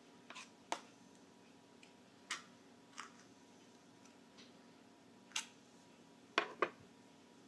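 Scattered light clicks and taps, about eight over several seconds, the loudest a quick pair near the end, over a faint steady hum.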